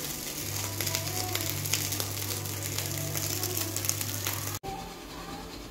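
White rice in oil crackling and sizzling in a nonstick frying pan, with a steady low hum underneath. The sizzle cuts off abruptly near the end, leaving only a fainter hiss.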